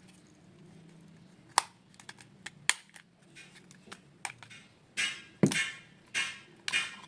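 Small sharp clicks of hard plastic phone parts being handled, then a run of short scraping strokes about half a second apart as a keypad phone is taken apart to remove its display.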